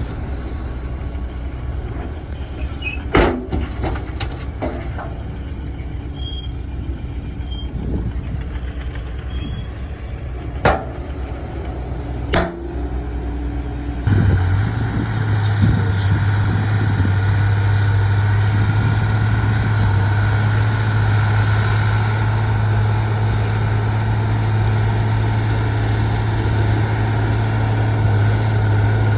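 Diesel engine of heavy earthmoving machinery running, with a few sharp metallic clanks over the first half. About halfway through the sound switches abruptly to a louder, steady engine drone with a whine above it.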